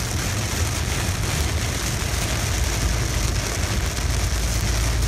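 Heavy rain hitting a car's windshield and body while the car drives on a wet road, with a steady low rumble of the vehicle and tyres heard from inside the cabin.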